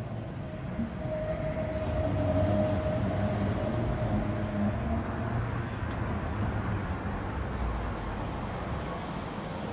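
Tram running: a steady rolling rumble that swells about two seconds in and slowly eases, with a held tone over the first few seconds and a faint high whine joining about halfway through.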